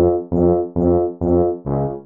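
Computer playback of two tubas playing short, detached low notes in an even pulse, a little over two a second. The same note repeats at first, then moves to new pitches about one and a half seconds in as the next bar begins.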